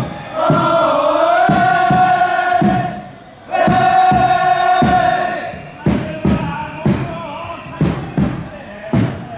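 Festival music: a drum struck steadily about twice a second under long, drawn-out chanted notes from voices, two held notes in the first half.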